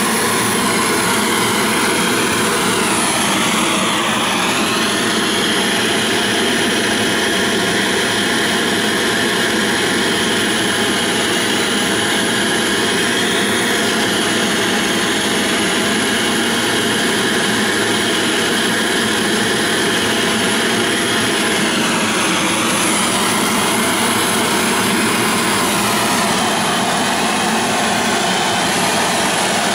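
Gas torch burner roaring steadily while heating a copper model boiler for silver soldering. Its tone dips briefly and comes back twice, about four seconds in and again after twenty-two seconds.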